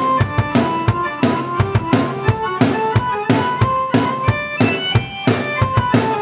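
Drum kit and keyboard playing together: a steady beat of bass drum and snare hits under a keyboard melody.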